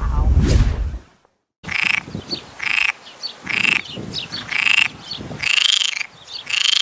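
A whoosh transition sound effect, a moment of silence, then an animal call repeated about six times, roughly once a second.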